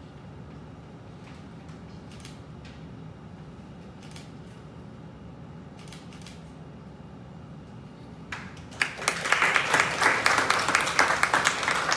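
Quiet room tone with a few faint clicks, then an audience breaks into applause about eight seconds in, a dense, loud clapping that carries on.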